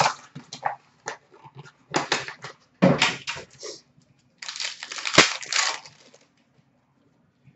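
Hockey card packs being torn open and cards handled: short bursts of wrapper rustling and crinkling with pauses between, and one sharp tap a little past the middle.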